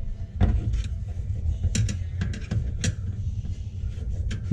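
Irregular sharp clicks and knocks as a garbage disposal is twisted and locked onto its sink mounting ring, over a steady low rumble.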